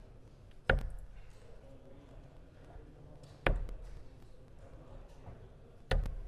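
Three darts striking a Winmau Blade 6 bristle dartboard one at a time, each a single sharp thunk, roughly two and a half seconds apart.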